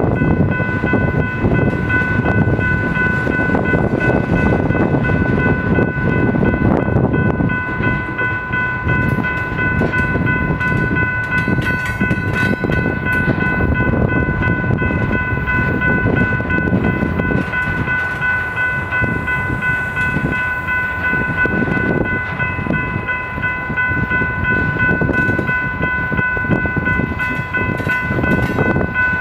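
Freight train cars (tank cars, flatcars and covered hoppers) rolling past close by, with a steady rumble of wheels on rail. A steady high whine of several tones runs over it.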